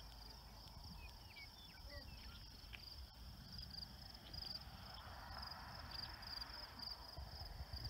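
Outdoor ambience: a steady, high-pitched, pulsing insect trill. A few short bird chirps come in the first three seconds, over a low wind rumble.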